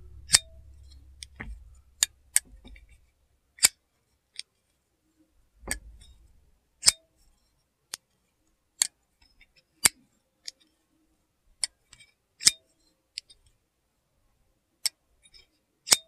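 Medford Slim Midi folding knife's blade repeatedly opened and closed by hand: sharp metallic clicks of the blade snapping against its stop pins and the lock bar engaging, at irregular spacing, about one a second, with some handling rumble near the start.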